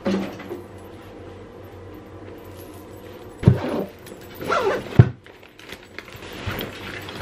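A backpack being packed by hand: rustling and handling noise with light metallic jingling, and two dull thumps about three and a half and five seconds in as things are put into the bag.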